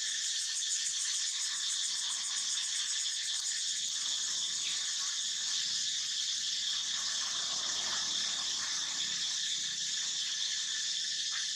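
Steady, high-pitched chorus of insects with a fast pulsing trill.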